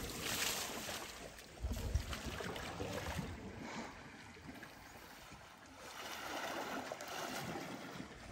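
Water sloshing and splashing as elephants move in a waterhole, with gusts of wind rumbling on the microphone.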